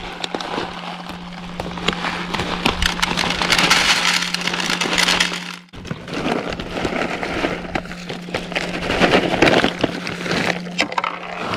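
Plastic bags of carp feed pellets crinkling and rustling as the pellets are poured out and scooped by hand, with a short break about halfway through. A steady low hum runs underneath.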